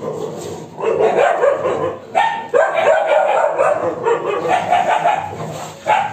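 Several dogs barking and yipping in a fight, the calls coming in quick, overlapping runs with only brief breaks about two seconds in and near the end.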